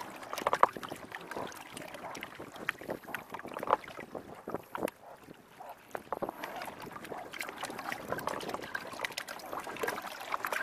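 Small waves lapping and slapping against the hull of a drifting sit-on-top kayak, in irregular short splashes and knocks that ease off briefly about halfway.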